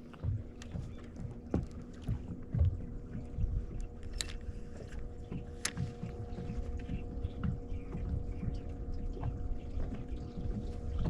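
Ambient sound aboard a small fishing boat at rest: a low, uneven rumble of wind on the microphone, scattered light knocks and clicks, and a faint steady hum.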